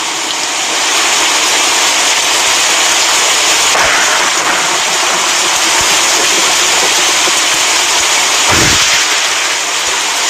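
A loud, steady noise, a dense hiss-like din with no tune or voice, broken by two knocks about four and eight and a half seconds in; it is loud enough to make a person cover her ears.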